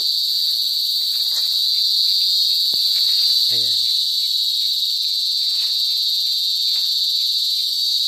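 A cicada singing in a tree: one loud, steady, high-pitched drone that holds without a break.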